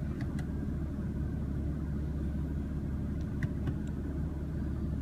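Steady low rumble of the 2016 BMW M3's twin-turbo inline-six idling, heard from inside the cabin, with a few faint clicks.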